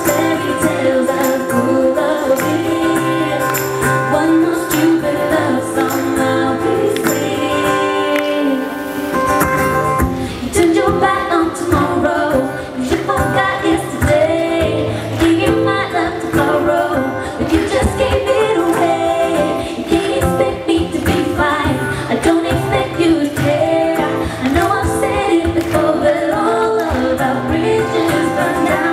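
Female vocal duo singing a pop song live over accompaniment with a steady beat. The beat drops out briefly about nine seconds in, then comes back.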